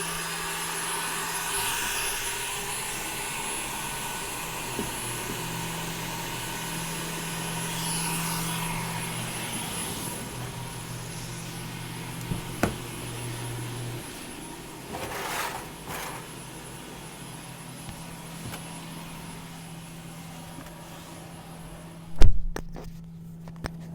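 Air blower running steadily, aimed at the windshield seal on the side that does not leak, with no wind noise coming through. It drops in level partway through, and a single loud thump comes near the end.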